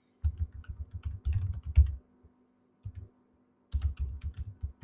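Typing on a computer keyboard: two runs of quick keystrokes with a pause of about a second and a half between them.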